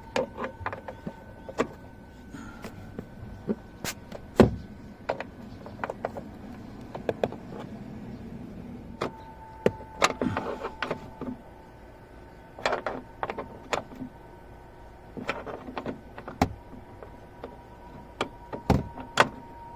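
Irregular metal clicks and knocks of a socket wrench on the loose bolt of a car door's check strap as it is fitted and turned, with a few louder knocks about four seconds in and near the end. A faint steady tone comes and goes behind them.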